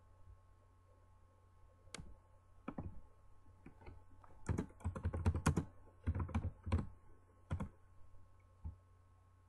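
Typing on a computer keyboard: a few single key clicks, then a quick run of keystrokes about halfway through, then one or two last clicks.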